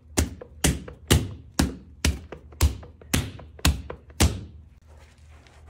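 A run of about nine sharp knocks at an even pace of about two a second, stopping a little past four seconds in.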